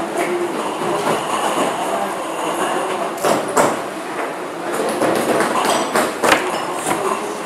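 Steady background noise with a few short, sharp clicks, a pair about three seconds in and another pair about six seconds in, from wire cutters snipping and stripping the thin wires of an LED driver.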